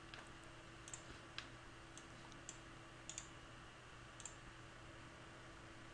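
A handful of faint computer mouse clicks, scattered irregularly, over a faint steady hum.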